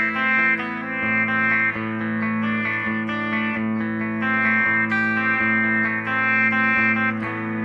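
1958 Gibson Les Paul Special electric guitar with P-90 pickups, played clean through a Line 6 Helix amp modeller. Chords are strummed and left ringing over a held low note, with a fresh strum about every half second to a second.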